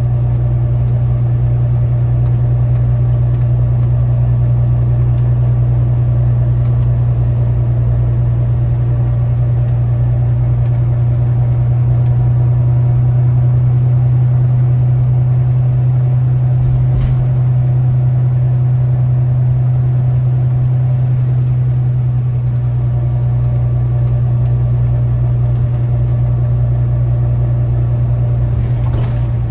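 Volvo B9TL double-decker bus engine running steadily, a loud, even low hum heard from inside the upper deck. There is a single knock about seventeen seconds in.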